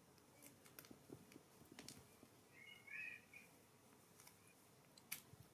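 Near silence with scattered faint ticks, and a brief cluster of high chirps about three seconds in.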